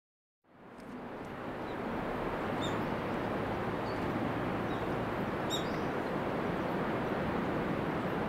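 Outdoor ambience fades in about half a second in: a steady, even noise, with a few short, high bird chirps over it.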